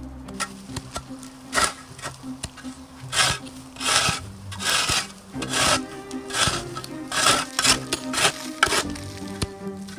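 Metal shovel blade scraping and scooping through dry, gravelly soil and tossing it, in repeated strokes roughly one a second, over soft background music.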